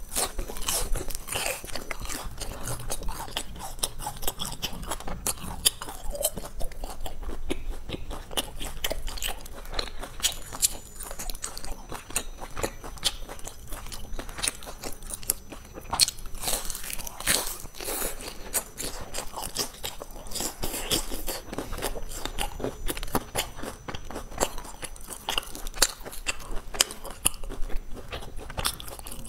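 A person biting and chewing crispy golden fried filled cakes close to a clip-on microphone. A continuous run of small sharp crunches and crackles as the crust breaks between the teeth.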